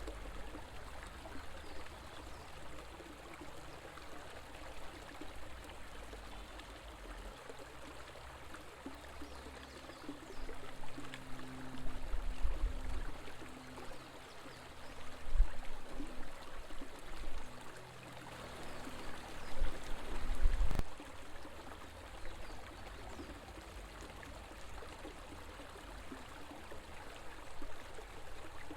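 River water flowing: a steady rush of running water. From about ten seconds in to about twenty-one seconds in, low rumbles and thuds come and go and are the loudest moments, with a faint low hum alongside them.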